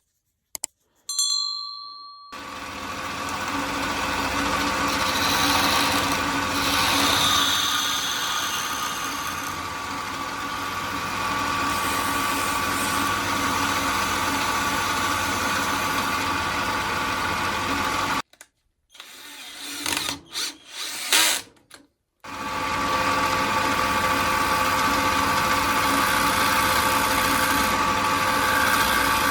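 An electric power tool running steadily, cutting off about 18 seconds in, then started in a few short spurts before running steadily again.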